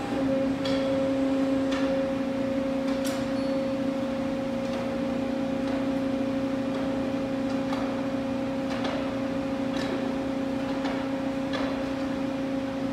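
Steady mechanical hum of underground mining machinery in a salt mine, one low pitch with its overtone held unchanged, with a few faint scattered clicks.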